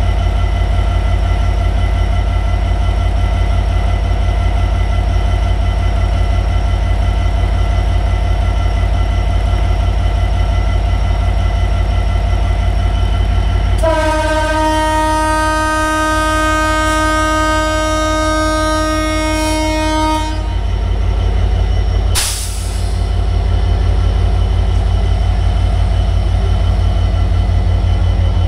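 Bangladesh Railway diesel-electric locomotive's engine running with a loud, steady drone, heard from close alongside. About halfway through, its multi-tone horn sounds once for about six and a half seconds, the signal for departure, and a couple of seconds later there is a brief sharp burst of noise.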